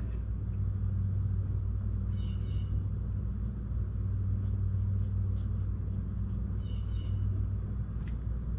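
Steady low hum, with faint scratching of a pen writing on a sample-bottle label twice, about two seconds in and again near seven seconds.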